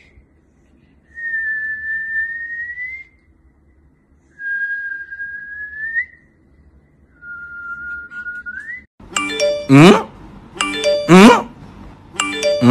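A person whistling four single notes, each held steady for about two seconds and bending upward at the end, the last one lower. About nine seconds in, three much louder sounds follow, each sweeping steeply down in pitch, roughly a second and a half apart.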